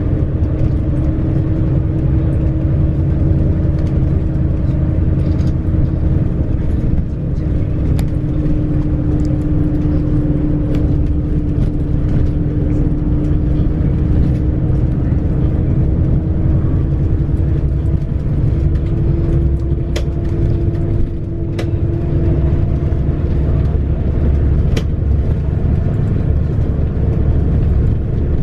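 Cabin noise inside a moving bus: a steady engine and road rumble with a steady drone that shifts slightly in pitch, and a few sharp rattling clicks.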